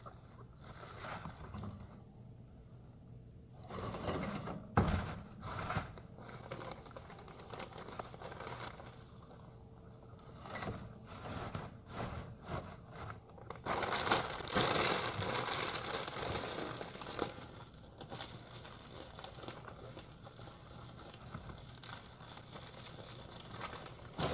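Rustling and crinkling in a guinea pig's cage, in irregular bursts with scattered clicks, and a longer spell of dense rustling about two-thirds of the way through.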